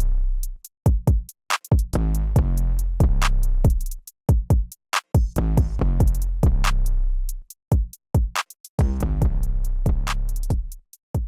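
Electronic music with a heavy drum-machine beat and deep bass.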